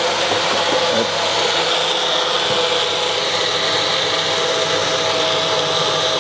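Personal blender running steadily, blending a banana, milk and protein-powder shake.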